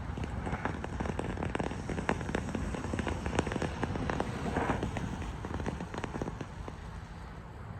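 Small ground fountain firework (a 'silvery water fountain') spraying sparks with rapid irregular crackles, thinning out near the end as it burns down.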